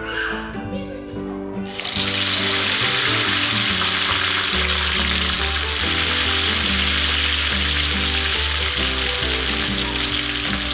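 Marinated king fish (seer fish) pieces going into hot oil in a frying pan. The oil starts sizzling loudly about two seconds in and keeps up a steady, dense hiss over background music.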